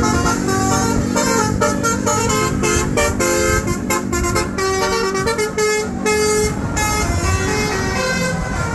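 Basuri multi-tone telolet bus horn playing a fast melody of short pitched notes that change every fraction of a second, over a steady low hum.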